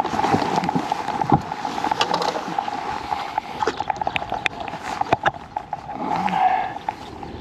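Irregular clicks and knocks of hands handling gear right at the microphone, over a steady hum.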